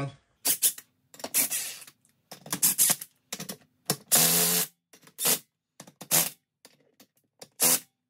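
Ridgid cordless impact with a half-inch socket, run in a string of short bursts of under a second each, the longest about four seconds in, as it snugs the beadlock ring bolts down one by one. It only snugs them; the bolts are torqued properly by hand afterwards.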